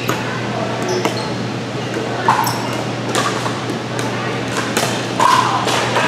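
Pickleball paddles striking the hollow plastic ball, a string of sharp, irregular pocks.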